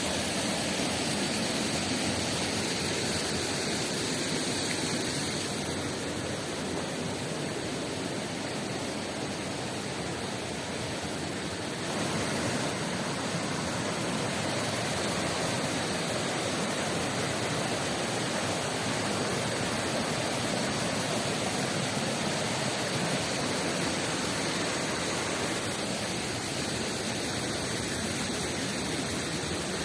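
Rushing water of a mountain river, a steady full hiss that shifts slightly about six and again about twelve seconds in.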